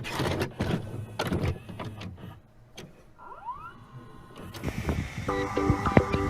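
Intro sound effects: noisy rushes and knocks, then a brief rising glide about three seconds in. Electronic music starts near the end, with a steady high tone and short repeating notes.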